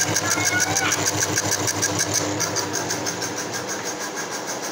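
Motor of a homemade mini lathe running, spinning a grinding wheel against a drill bit held in the tool post: a steady machine hum with a fast, even pulsing, which eases a little about two seconds in.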